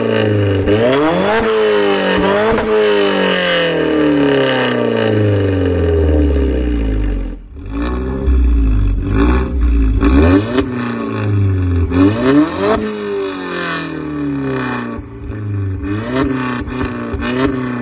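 Alfa Romeo Giulietta Quadrifoglio Verde's turbocharged 1750 four-cylinder engine being revved again and again through its exhaust, the pitch climbing and falling with each blip. The level drops sharply for a moment about halfway through, followed by a deep low rumble, and later revs carry short sharp pops.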